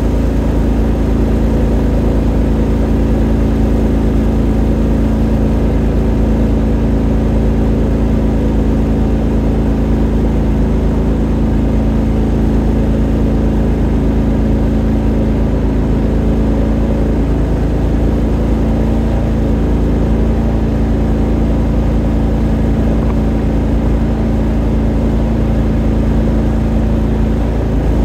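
Beaver Dam mud motor running steadily at an even speed, pushing a jon boat under way.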